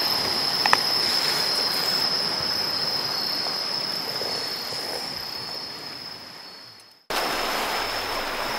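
Insects chirping in a steady high trill over a constant rushing wash of wind and sea. It fades out about seven seconds in, then starts again abruptly.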